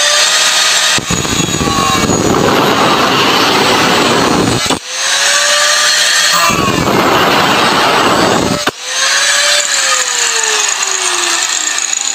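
Angle grinder with a cutting disc running free with a steady whine, then cutting into a metal rod with a loud grinding rasp, twice. Near the end it winds down, its whine falling in pitch as the disc spins to a stop.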